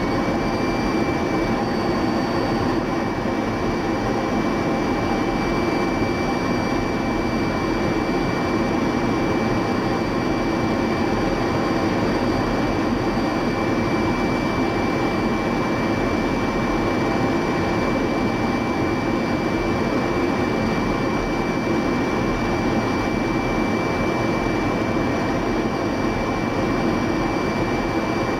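F-16 fighter in steady flight heard from inside the cockpit: the jet engine and rushing air make a constant, even noise, with a thin high whine held steady over it.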